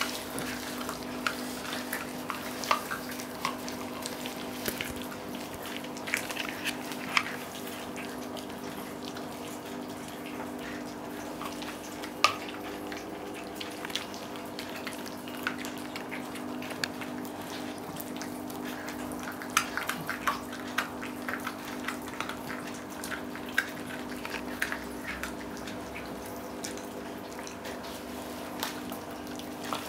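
Small dogs gnawing raw oxtail bones: irregular wet clicks and sharp cracks of teeth on bone and meat, the loudest crack about twelve seconds in, over a steady low hum.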